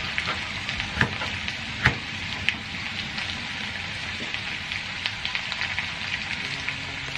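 Food sizzling in hot oil in a pan: a steady hiss with constant small crackles, and a couple of louder sharp clicks about one and two seconds in.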